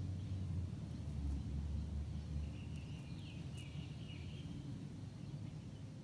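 Outdoor ambience: a low rumble that drops away about two and a half seconds in, and a bird calling briefly with a few high chirps about three seconds in.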